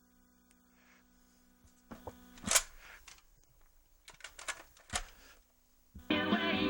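Plastic 8-track cartridge clacking and knocking as it is pushed into and pulled out of a Delco T400 8-track player, with a brief steady hum in between. Music starts playing from the tape about six seconds in as the player engages.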